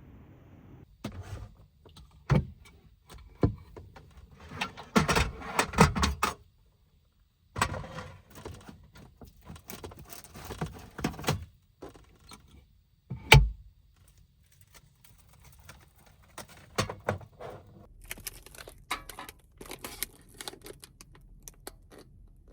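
Small hard objects being handled: a run of clicks, light knocks and clatter in clusters, with one sharp knock about thirteen seconds in. The sound cuts out to dead silence twice.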